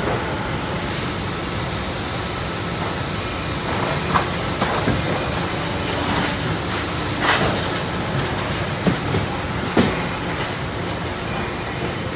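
Steady factory-floor machinery noise from a running overhead conveyor line, with a few short metallic clanks and knocks scattered through the middle as shock absorbers are hung on its hooks.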